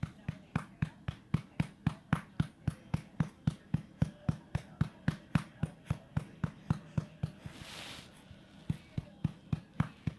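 A hand patting a baby's back to bring up a burp: steady soft pats at about four a second. The pats stop for about a second near the end, with a brief hiss, then start again.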